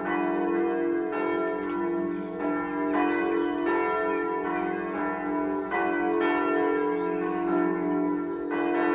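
Church bells of the Südkirche in Esslingen pealing together. Several swinging bells strike in an uneven, overlapping pattern, about once a second, and their tones ring on continuously between strokes.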